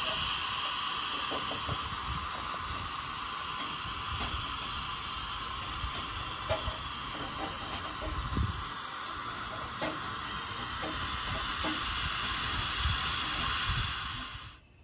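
Steady hiss of steam escaping from a standing 0-4-0 steam locomotive, with a few faint clicks and knocks, dropping away suddenly near the end.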